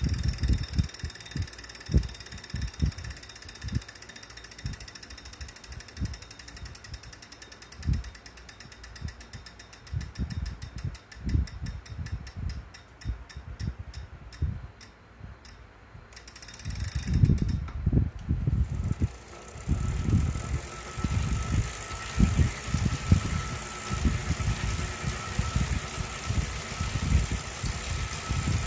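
Wahoo smart bike trainer in use, making an unwanted noise that persists after cleaning and a 30-minute warm-up. Uneven low thumps run throughout. Midway a freewheel ticks, the clicks slowing as it coasts. Then pedalling resumes and a steady whine comes in over the thumps.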